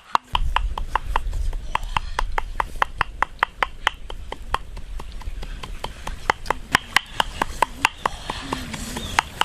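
A rapid series of sharp knocks or taps, about four a second, like chopping or cracking, over a low rumble.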